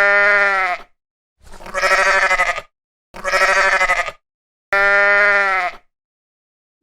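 Goat bleating: four loud, drawn-out bleats of about a second each, with short pauses between them; the middle two quaver.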